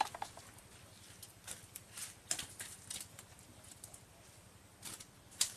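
Scattered light clicks, taps and rustles at irregular intervals: small fish being picked by hand out of a fine gill net heaped on a concrete floor.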